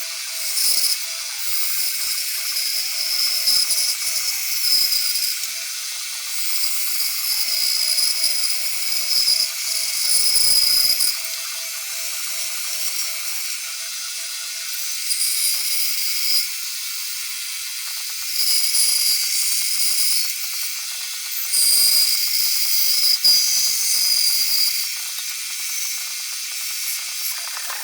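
Power grinder working steel: a steady motor whine under a harsh high hiss that swells and fades as the abrasive is pressed onto the metal and eased off, several times.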